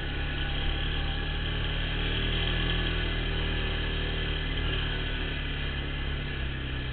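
ATV (quad bike) engine running steadily as the machine rides along a dirt trail, with a steady hiss of wind and rolling noise over the engine drone.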